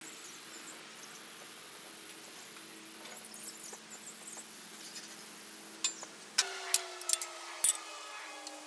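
A steady mechanical hum, then after about six seconds several sharp metal clinks over a low drone that slowly falls in pitch.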